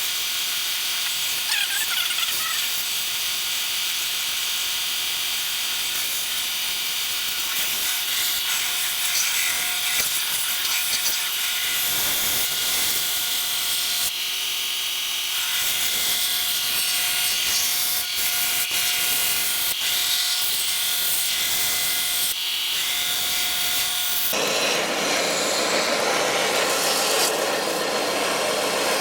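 Belt sander running while a wooden spatula blank is pressed against the belt and sanded thinner, a steady grinding hiss. About 24 seconds in the sound turns coarser and fuller as the contact changes.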